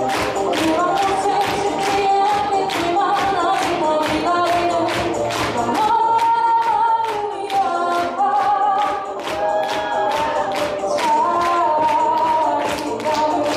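A girl singing a pop song into a handheld microphone over a backing track with a steady beat, amplified through the hall's speakers.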